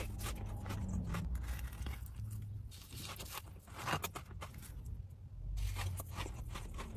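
Close-miked eating of a chocolate pistachio dessert, played at double speed: crisp crunching and crackling bites with chewing.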